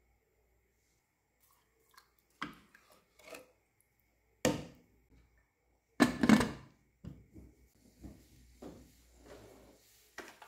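Metal knocks and clatter of a pressure cooker lid being handled and fitted onto the pot. The loudest clatter comes about six seconds in, followed by smaller taps.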